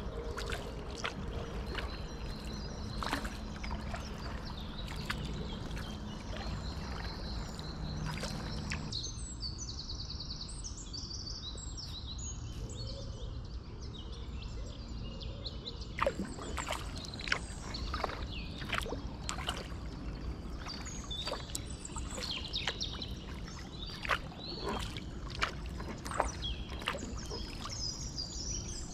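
Kayak paddle strokes: the blades dip into the water and drip, making many short splashes and patters at irregular intervals, while small birds chirp in short calls. A steady low rumble runs underneath.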